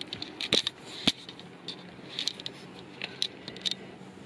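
Brown paper bag rustling and a foil packet crinkling as items are pulled out of the bag, in scattered short crackles and clicks.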